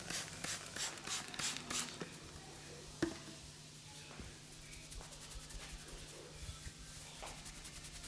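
Fingertips rubbing and scratching through short hair during a head massage, in quick strokes about three a second for the first two seconds, then lighter and faster. A single sharp click about three seconds in is the loudest sound.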